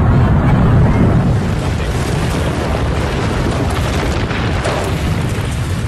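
Loud, deep rumbling roar of a World Trade Center tower collapsing, heaviest in the first second, then a continuous crackling roar.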